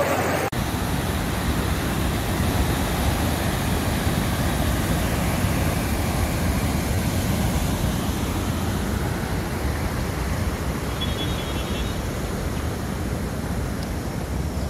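Steady rushing noise of fast-flowing floodwater pouring across a road.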